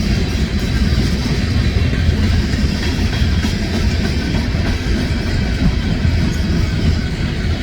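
Ferromex freight train rolling past with a steady, loud low rumble of wheels on rail.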